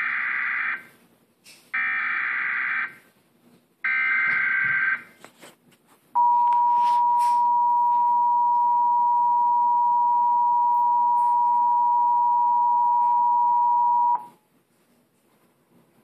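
Emergency Alert System signal from a TV speaker: three short bursts of SAME digital header tones, then the two-tone attention signal, a steady dual tone held for about eight seconds before it cuts off. It opens the TV's rebroadcast of a Severe Thunderstorm Warning.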